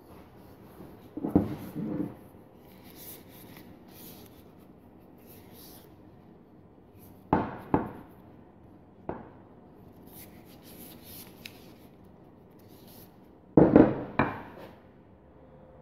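Gloved hands rubbing oil into the wooden handle of a steel ball-peen hammer, a soft, quiet rubbing broken by short clunks as the hammer is handled and set down on the bench: once near the start, twice around the middle and loudest near the end.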